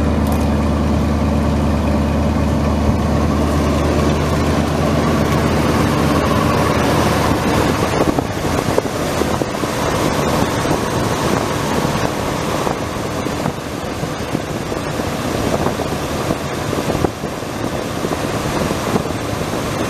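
The 1978 Ford F250's eight-cylinder gas engine idling steadily. After about seven seconds the even engine note gives way to a rougher, noisier sound, with wind on the microphone.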